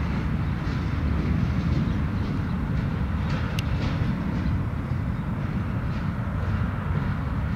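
Freight train rolling past on the rails: a steady low rumble of wheels on track, with a few brief high clicks from the wheels.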